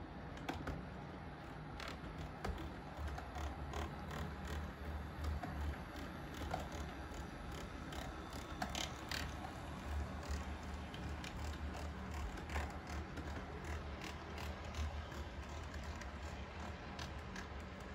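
HO scale model train rolling past on its track: irregular small clicks and rattles from the wheels and cars over a low, steady hum.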